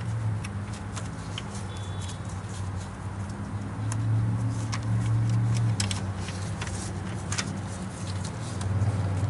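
Scattered light metallic clicks and clinks from the steel timing chain and camshaft sprocket of a 5.3L LS V8 as they are handled and the chain is wrapped onto the sprocket. Underneath runs a steady low hum that grows louder for a couple of seconds in the middle.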